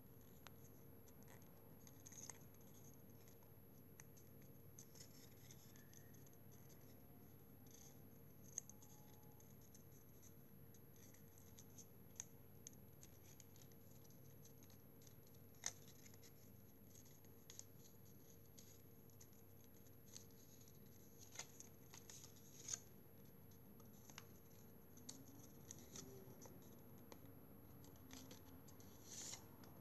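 Faint rustling and crinkling of origami paper being folded and creased by hand, with a few sharp crackles scattered through, over a low steady hum.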